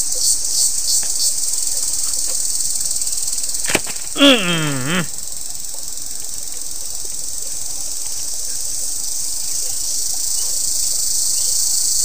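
Insects droning steadily at a high pitch, with a single click and a short voice falling in pitch about four seconds in.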